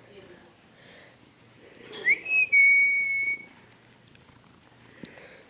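A person whistling one high note about two seconds in, sliding up quickly and then held steady for about a second.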